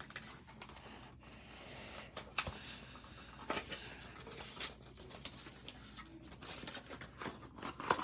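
A small cardboard cube box being handled and opened, with light, irregular taps, clicks and scrapes as a plastic 4x4 puzzle cube is slid out of it.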